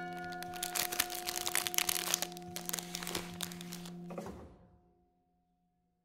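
Cellophane bag crinkling as hands handle it and tie it closed, over held bell-like music tones; both stop about four seconds in and fade away.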